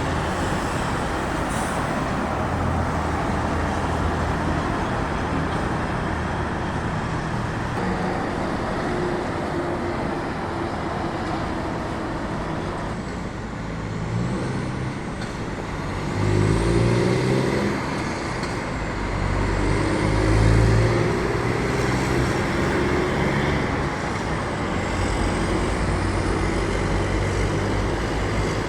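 Heavy truck engine rumbling loudly as the truck goes by, with traffic noise, swelling louder twice in the second half.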